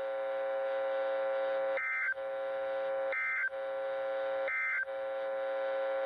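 NOAA Weather Radio end-of-message signal through a Midland weather radio's speaker: three short bursts of warbling digital data tones, about 1.3 s apart, marking the end of the weekly test transmission. Underneath, a steady buzz runs between the bursts.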